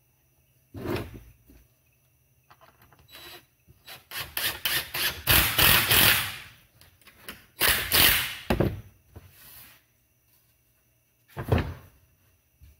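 DeWalt DCD771 cordless drill/driver running screws into a pine 2x4 end piece, in two long drives a few seconds in, the screw grinding through the wood. Single knocks of wood set down on the bench about a second in and near the end.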